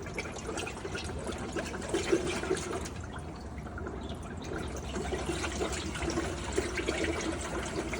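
Refrigerant bubbling and gurgling into a bucket of water as it is vented from the low-pressure side of an overcharged heat pump, to bring the low-side pressure down from about 200 psi.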